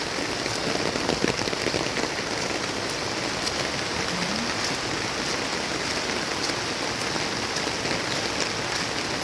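Steady heavy rain from an arriving typhoon, pouring down without letup.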